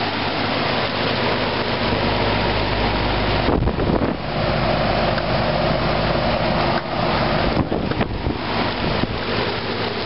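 1982 GE Executive high-efficiency 2-ton straight-cool central air conditioner condensing unit running: a steady low hum under an even rush of air.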